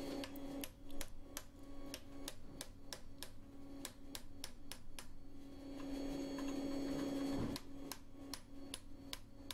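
Light hammer taps, about three a second, driving a round-ended steel punch into red-hot steel to sink and widen the eye sockets of a forged skull, over a steady low hum.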